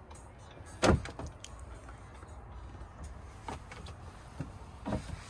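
Knocks and thumps of someone moving about on a small sailboat's deck: one heavy thump about a second in, then several lighter knocks and clicks over a low steady rumble.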